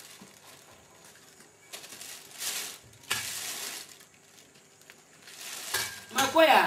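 Plastic bag rustling and crinkling in a couple of short bursts as produce in a metal basin is handled, with a light clink. A voice calls out near the end, the loudest sound here.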